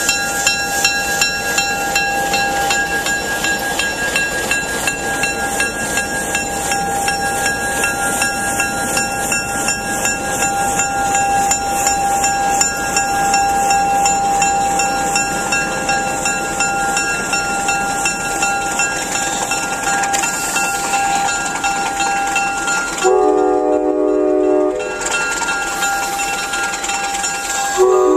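Cuyahoga Valley Scenic Railroad passenger train rolling past, the diesel locomotive and then its coaches, with a steady hum and the wheels clicking over the rail joints. About 23 seconds in, the locomotive's air horn blows a chord for about two seconds, and it starts to sound again right at the end.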